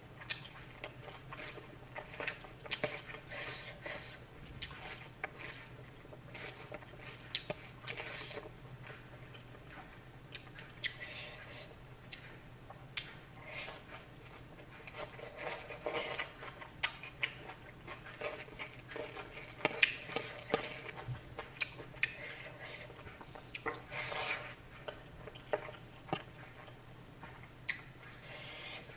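Irregular small clicks, scrapes and squishy sounds of food being handled with dishes and utensils, over a faint steady low hum.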